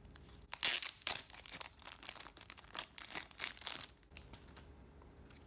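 Clear plastic card-pack bag crinkling as it is handled and opened, a quick run of crackles from about half a second in that stops at about four seconds.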